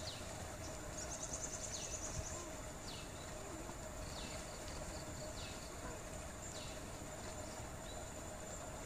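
Outdoor ambience: a bird repeating a short falling whistle every second or two, over a steady high insect drone and a background hiss. A brief fast trill comes in just after a second in.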